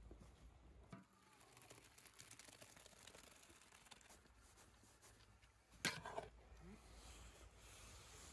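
Near silence: cooked rice being tipped from a pot into a metal bowl makes only faint handling sounds, with one short knock about six seconds in.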